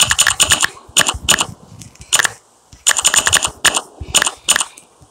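Smartphone on-screen keyboard key-press clicks as a message is typed, coming in quick runs of sharp ticks with short pauses between words.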